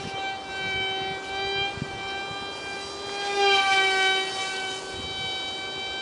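The 8mm direct-drive electric motor and propeller of an ultra-micro foam RC jet whining steadily at a high pitch as it flies, growing louder with a slight drop in pitch as it passes close a little past halfway.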